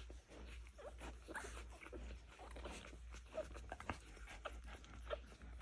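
Faint, scattered short squeaks from three-day-old newborn puppies, with soft clicks and rustling as they nurse and are handled.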